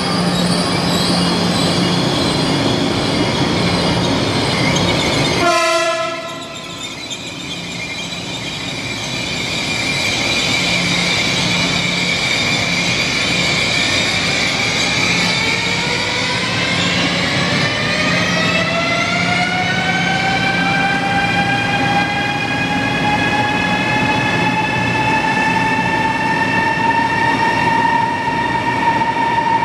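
High-speed electric train running through the station with a steady rushing noise that drops away suddenly about six seconds in. About halfway through, the electric traction drive's whine starts and rises smoothly in pitch for some ten seconds as a train accelerates away, then holds at a steady high note.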